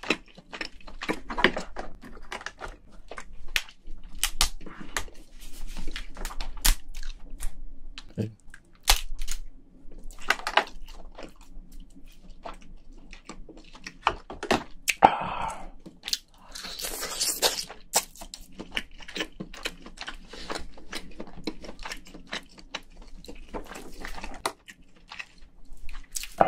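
Shell of a cooked spiny lobster being cracked and pulled apart by gloved hands: a run of sharp cracks and crunches, with longer crackling tears near the middle, mixed with close-up chewing.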